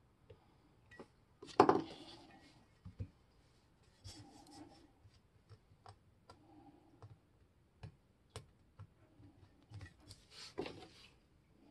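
Metal parts of an antique cast iron level being handled and fitted together on a cloth: scattered small clicks and taps with soft rubbing, and a louder knock about a second and a half in and another near the end.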